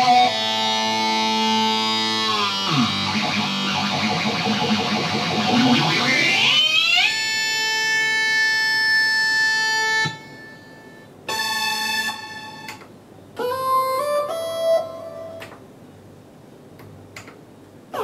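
Roland GAIA SH-01 synthesizer being played. A held chord dives down in pitch about two and a half seconds in, sweeps back up and sustains until about ten seconds in. Then come a few short chords and notes with upward pitch glides into them, separated by pauses.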